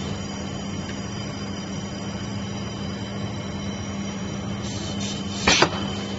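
Robotic welding equipment running with a steady electrical hum and noise, broken near the end by a short, loud double burst of noise.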